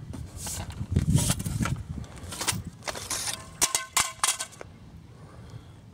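Handling noise from a fishing rod and reel: a quick run of sharp clicks and knocks, with a few short squeaks among them near the end.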